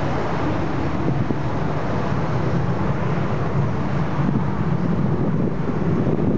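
Steady jet engine noise from a Boeing 737-800's CFM56 turbofans at low taxi power, mixed with wind buffeting the microphone.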